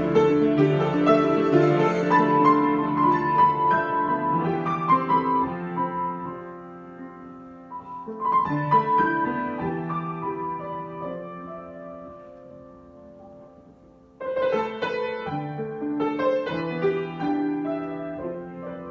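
Solo piano improvisation: chords and melody notes ring and die away slowly, then a loud new chord starts a fresh phrase about 14 seconds in.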